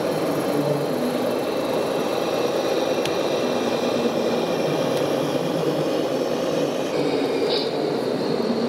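Steady engine sound from a radio-controlled Mercedes-Benz Actros heavy-haul model truck crawling slowly with its lowbed trailer, over the constant din of a busy exhibition hall.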